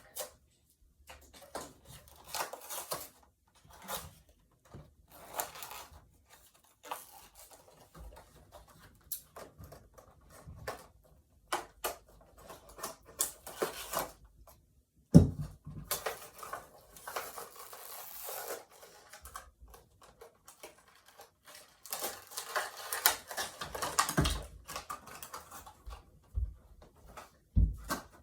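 Small plastic toys and their packaging being handled: scattered clicks and taps, a sharp knock about halfway through, and two longer stretches of crinkling, tearing rustle as packaging is opened.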